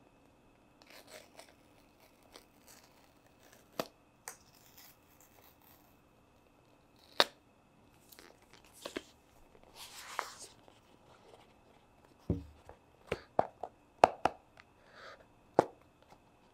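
Close-up handling of a cardboard iPhone retail box: light rustles, a tearing sound about ten seconds in, then a soft thump followed by a run of sharp taps and clicks against the box.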